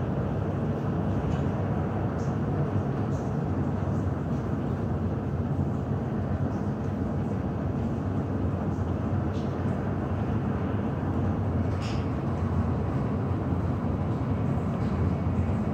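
Steady low rumble of airport apron noise, even throughout, with a few faint ticks.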